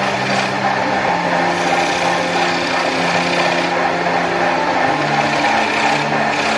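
Wood lathe running, a turning tool cutting into a large spinning wooden disc with a steady machine noise.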